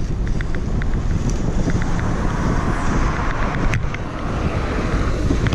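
Wind buffeting the camera microphone over the steady low rumble of an ICE recumbent trike rolling along a rough road, with a scatter of light ticks and one sharper click a little under four seconds in.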